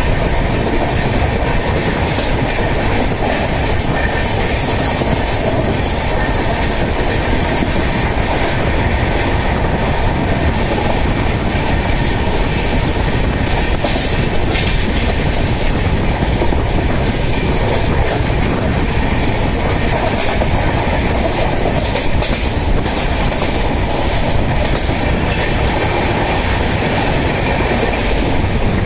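LHB passenger coach running at speed, heard from its open doorway: a steady, loud rumble of wheels on the rails with wind rush and occasional clatter over rail joints.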